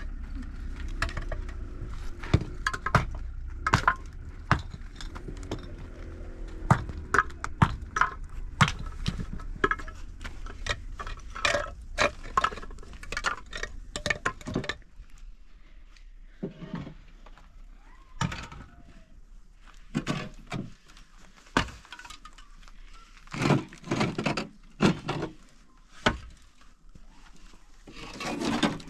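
Dishes, pots and utensils clinking and knocking: many quick strikes over a low hum in the first half, then sparser knocks and clatters.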